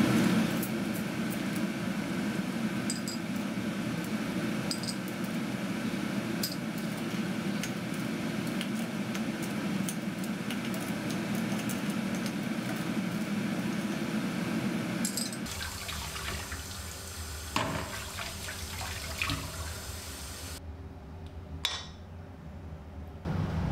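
Water at a rolling boil in a stainless-steel saucepan of cockles, bubbling steadily. After about fifteen seconds the bubbling stops, and a few sharp clicks and knocks follow.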